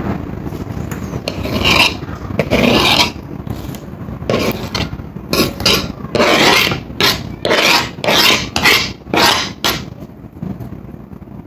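A run of scraping strokes: a utensil rasps across a plastic cutting board and a ceramic bowl as chopped tomatoes are pushed into the bowl and stirred in. The strokes come in quick succession in the second half.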